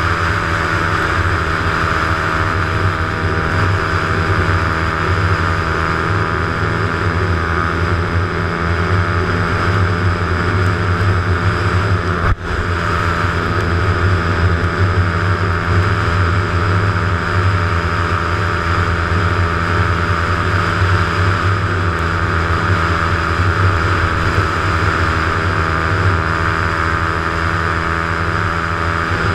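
Motorcycle engine running steadily at cruising speed, with wind and tyre noise from a wet road. The sound cuts out with a brief click about twelve seconds in, then carries on unchanged.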